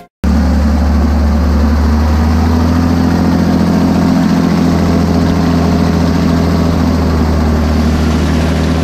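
Motorboat engine running steadily under way, a deep even drone over the rush of water and wind. It cuts in abruptly just after a brief silence.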